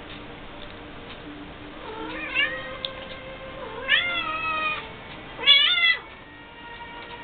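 Cat mewling: three whining calls that rise in pitch, about two, four and five and a half seconds in, the last the loudest.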